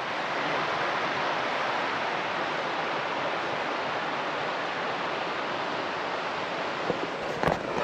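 Shallow, stony mountain river rushing over rocks in small rapids, a steady rush of water.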